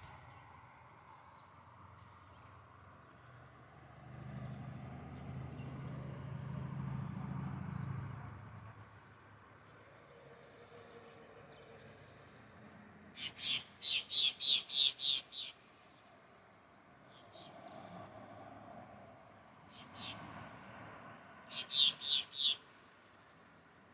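Wild birds calling: one bird gives a fast run of about eight loud, high, evenly spaced notes about two-thirds of the way through, then a shorter run of four near the end. Under it are a faint steady high insect drone, faint distant twittering, and a low rumble for a few seconds near the start.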